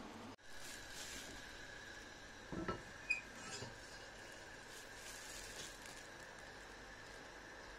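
Water heating in a stainless steel saucepan on a gas hob: a faint steady hiss with a thin high steady tone. A couple of knocks and a sharp click come about three seconds in.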